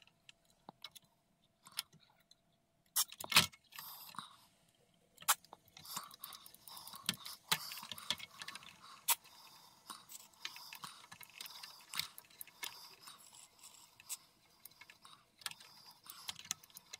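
Aerosol electronics contact cleaner sprayed through its straw into a tube preamp's potentiometers in a run of short bursts, with scattered sharp clicks and knocks of the can and pots being handled.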